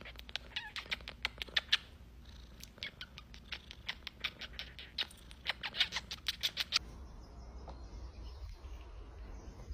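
Domestic cat purring close up, in quick rhythmic pulses, for about seven seconds. The purring then gives way to a faint steady hiss.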